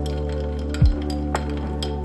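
Background music with a deep drum beat; under it, a metal straw and ice clink a few times against a glass mason jar as a drink is stirred.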